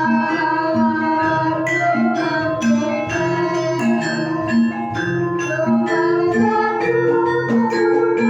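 Javanese gamelan ensemble playing, its struck metal keys sounding many ringing notes over a repeating lower line.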